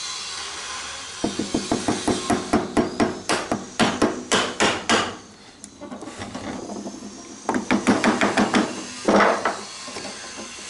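Wood chisel being struck with rapid light blows, about five a second, chopping out the waste of a joint in timber. There are two runs of strikes: one from about a second in until about five seconds, and another near the end.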